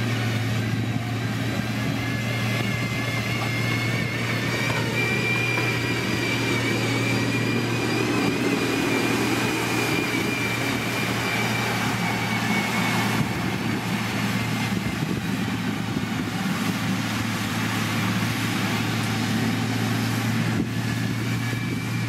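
Motor grader's diesel engine running steadily with a constant low hum, and a faint high whine that rises and eases off through the first half.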